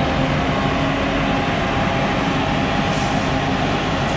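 Travel lift boat hoist driving with a yacht hanging in its slings: a steady mechanical drone from its engine and drive, with several steady humming tones.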